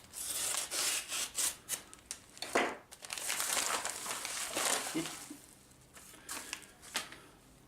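Parcel packaging being unwrapped by hand: crinkling, rubbing and tearing for about five seconds, then a few light clicks and rustles as it is pulled away.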